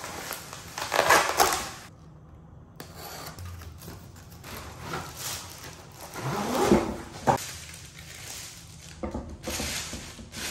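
Crinkling plastic packaging and a cardboard box being handled in an unboxing, with a plastic-wrapped tripod slid out of the box. The rustling is loudest about a second in and again around six to seven seconds, where there are a few short scrapes.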